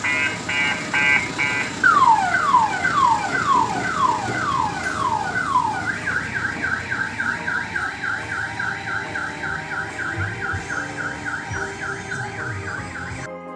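Electronic multi-tone car-alarm-type siren cycling through its patterns: fast stepped beeping, then falling wails about two a second from about two seconds in, then quick rising chirps about four a second from about six seconds in. It cuts off suddenly just before the end.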